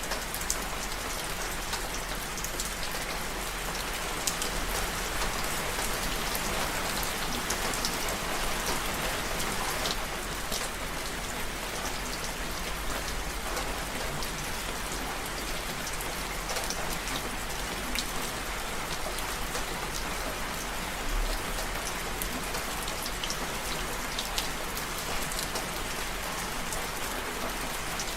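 Steady rain falling, a constant hiss with scattered sharp ticks of individual drops striking a surface.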